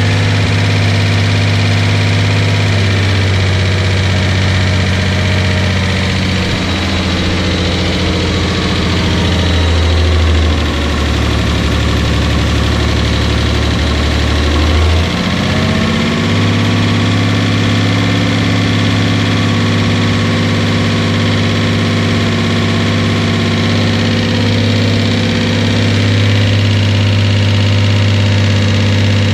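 Datsun 280Z's rebuilt L28 straight-six running steadily during its break-in run. The engine note sags lower for several seconds mid-way, then climbs back up about 16 seconds in.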